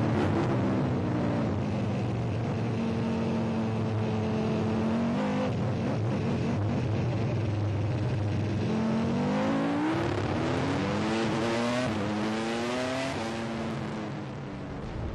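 Red Bull Formula One car's engine running hard on the road. Its pitch falls at first and holds steady, then climbs in a series of stepped rises as it accelerates up through the gears. It drops away near the end.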